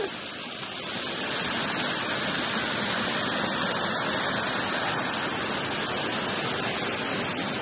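Small waterfall pouring down a rock face and splashing onto the rocks below, with the stream rushing among the stones: a steady rush of falling water.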